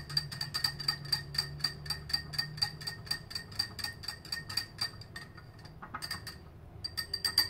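Metal wire whisk beating a thin batter in a small ceramic bowl, its wires clinking against the bowl fast and evenly, about four or five times a second, each clink ringing briefly. The clinking pauses for about a second near six seconds in, then starts again.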